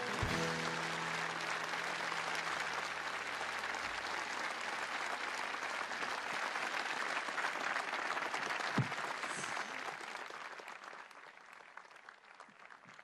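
A large audience applauding at the end of a song, while the last held note of the music fades out under it. The applause dies away over the last few seconds.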